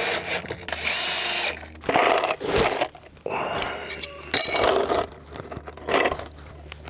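Power drill driving screws through metal corner plates into a wooden joist, running in several short bursts.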